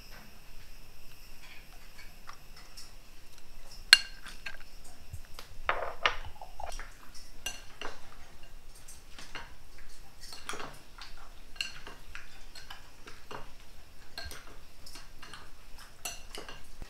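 Chopsticks clinking and tapping against a ceramic bowl in irregular strokes while mixing raw frog meat with seasonings, with one sharp, louder clink about four seconds in.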